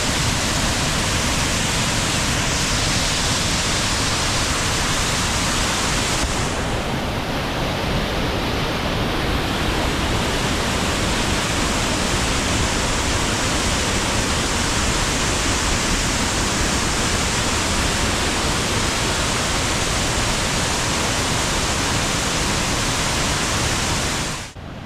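Steady rush of Glen Ellis Falls, a large waterfall running high, close enough to drift mist over the trail. The sound drops away sharply at the very end.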